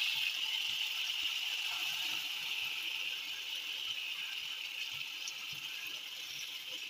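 Hot lamb broth being poured into a pot over the meat and potatoes: a steady hissing pour that slowly fades.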